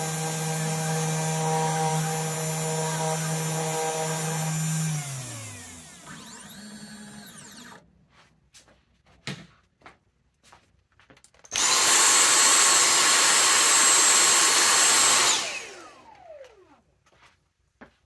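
3018 CNC router's spindle motor running with a steady whine as it mills copper isolation tracks on a PCB blank, then spinning down with a falling pitch about five seconds in. A second, louder and noisier spell of the spindle runs from about twelve to fifteen seconds and again winds down, with scattered light clicks in between and after.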